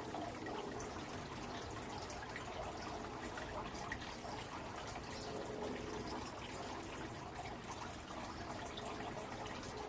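Steady, faint trickling of water with small scattered drips.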